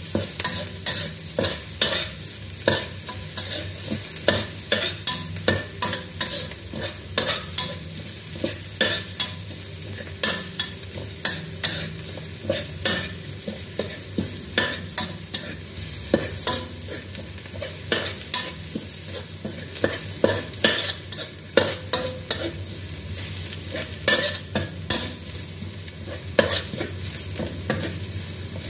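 Long-handled metal spatula scraping and knocking against a stainless steel wok in quick, irregular strokes, over a steady sizzle of chopped shallots and garlic frying in hot oil.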